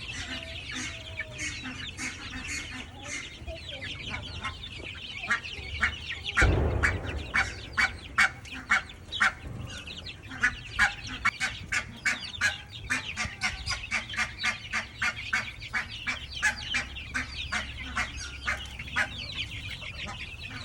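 A brood of baby chicks (Black Australorp, Delaware and New Hampshire Red) peeping constantly, many high, short, falling chirps overlapping. A dull thump about six seconds in, followed by a long run of sharp taps among the peeps.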